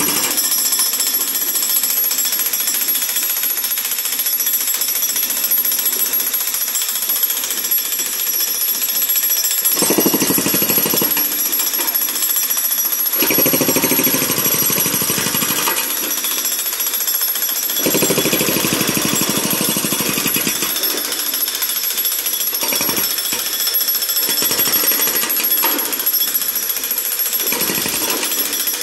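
Hydraulic breaker hammer on a John Deere 50D compact excavator pounding concrete: a loud, rapid, continuous hammering, with a deeper, heavier sound swelling in several times.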